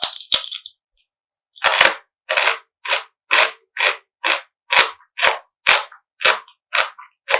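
Close-up crunchy chewing of food, with a few sharp bites near the start and then steady, even chewing strokes about two a second.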